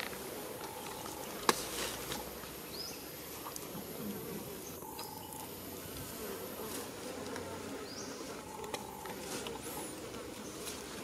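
Forest insects buzzing steadily, with a short call repeating every few seconds, small high chirps now and then, and a sharp click about one and a half seconds in.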